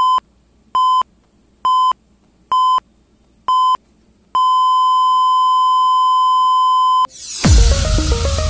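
Electronic countdown beeps: five short, identical steady beeps about one a second, then one long beep of nearly three seconds that cuts off suddenly. A rising swell follows, and electronic dance music with heavy bass comes in near the end.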